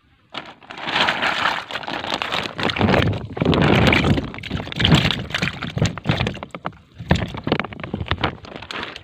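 Woven plastic sack rustling and crinkling loudly as it is held open and handled right at the microphone, a dense run of crackles that pauses briefly about three and seven seconds in.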